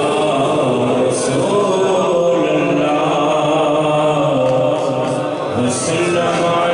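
A man chanting a devotional Sufi recitation into a microphone with no instruments, holding long drawn-out notes that glide from one pitch to the next.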